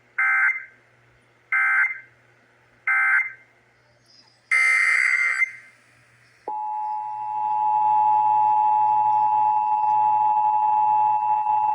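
Three short Emergency Alert System end-of-message data bursts (the digital SAME squawks), about a second and a half apart, then a brief noisy burst. About six seconds in, the steady two-tone EAS attention signal starts and holds.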